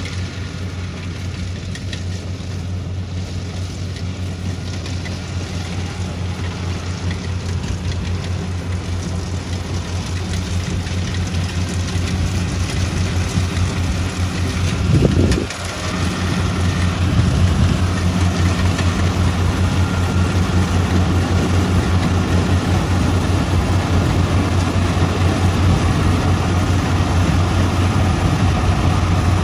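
Kubota crawler rice combine harvester running steadily while harvesting: a continuous low engine drone with the clatter of the cutting and threshing machinery, slowly getting louder as the machine comes nearer. A brief louder surge about halfway through.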